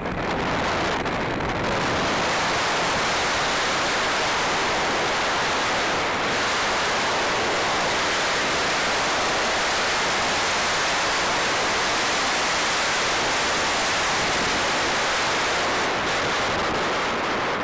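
Steady rush of airflow buffeting the microphone of a camera mounted on a radio-controlled model plane in flight: an even, loud hiss with no distinct motor tone.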